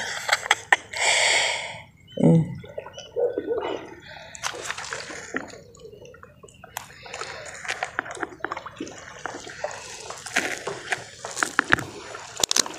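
Water splashing and sloshing at the shoreline as a freshly caught tilapia is landed, with one louder splash about a second in, followed by scattered wet clicks and rustles as the fish is handled.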